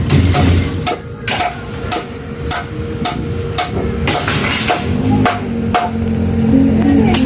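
Background music with a steady knocking beat, about two beats a second, over a bass line that steps between notes.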